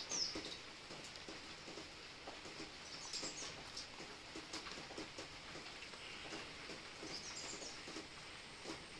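A bare hand mixing beaten egg into flour in a stainless steel bowl: faint, irregular rustling and small clicks as the fingers work the mix against the bowl. A short high chirp sounds three times: near the start, about three seconds in, and near the end.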